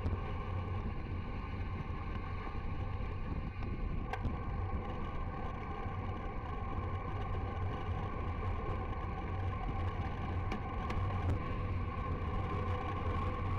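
Steady, muffled rush of wind and road noise from a bicycle descending at around 50–60 km/h, with a low rumble underneath and a faint click or two.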